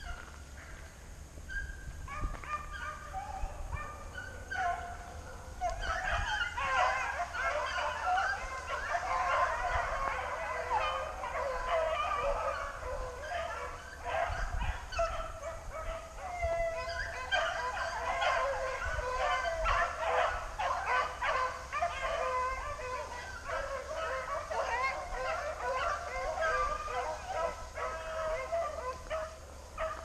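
A pack of rabbit-hunting hounds baying and yelping on a chase, many voices overlapping. The calls start a couple of seconds in and grow denser about six seconds in.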